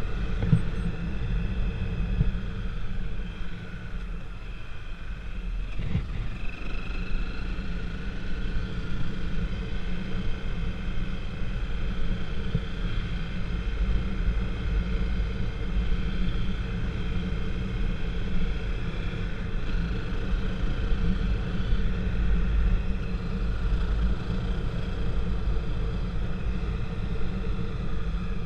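Steady, heavy low rumble of a vehicle on the move, with faint steady tones above it and no break.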